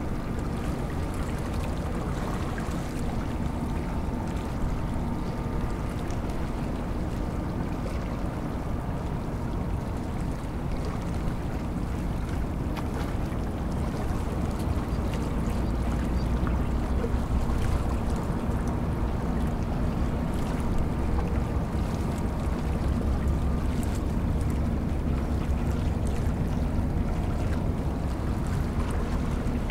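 Harbour tugboat diesel engines running with a steady low rumble and a faint hum above it, getting louder about halfway through as the tug works up power.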